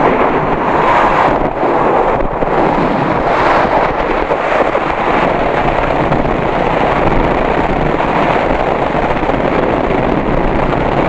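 Steady rush of wind buffeting the microphone on a moving motorcycle, with the ride's road and engine noise beneath it.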